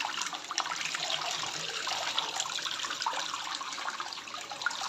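Running water splashing steadily over a pet parrot being given a bath.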